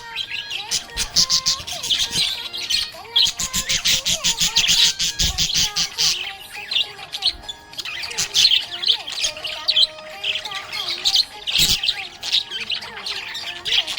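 Budgerigar chattering: fast runs of sharp chirps and clicks, with squawks in between.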